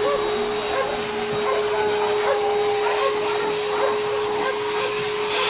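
Pet blower dryer running steadily, a constant whine over rushing air from its hose, blowing a freshly bathed dog's wet coat dry.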